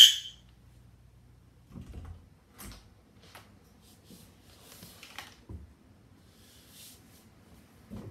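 System Sensor fire alarm horn, powered at 27 volts, ending its pulsed signal with one last short, loud, high-pitched blast right at the start. After that, only a few faint knocks and rustles.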